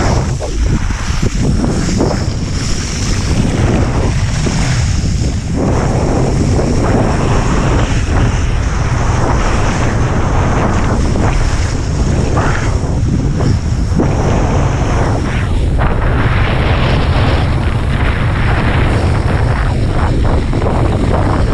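Strong wind buffeting the microphone of a kitesurfer's camera: a loud, steady rushing rumble.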